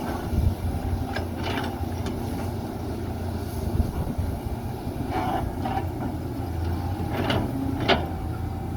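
Heavy diesel machinery running with a steady low rumble, broken by sharp knocks that come in pairs about a second in, five seconds in and seven seconds in.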